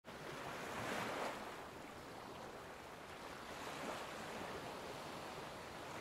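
Small waves washing up onto a sandy beach: soft, steady surf that swells about a second in and again near four seconds.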